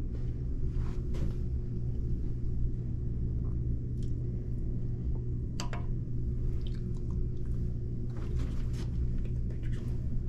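Steady low indoor hum (room tone) with a few faint clicks scattered through it, the sharpest about five and a half seconds in.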